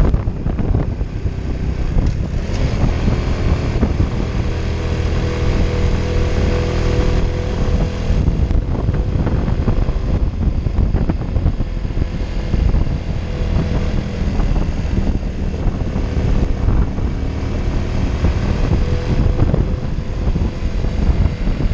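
Honda Innova 125's small single-cylinder four-stroke engine running steadily under load as the scooter climbs, pulling nicely, over a heavy rumble of wind and road noise.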